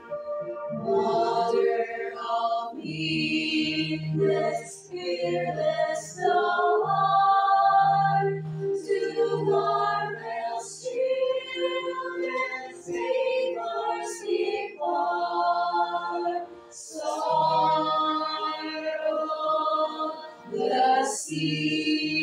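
Four women singing a hymn together, sustained sung lines with short breaks between phrases.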